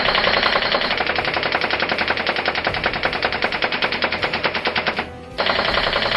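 C-TAC CT36C electric airsoft rifle firing on full auto: a long burst of rapid, evenly spaced shots that stops about five seconds in, then a second short burst near the end.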